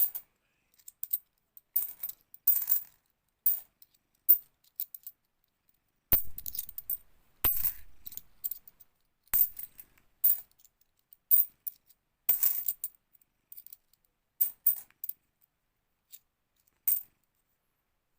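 50p coins clinking as they are handled and sorted by hand, in short irregular clusters of sharp clinks with quiet gaps between. Two heavier knocks come about six and seven and a half seconds in.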